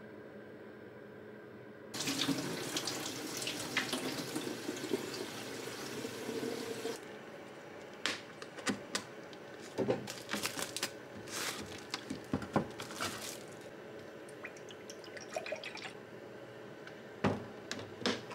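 A tap runs into a sink for about five seconds, then is shut off. A string of light clicks and knocks follows as things are handled at the sink.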